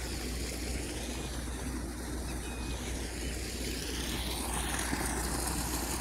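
Steady running noise of a vehicle travelling along a road: a constant low engine hum under an even wash of road and wind noise, growing slightly louder near the end.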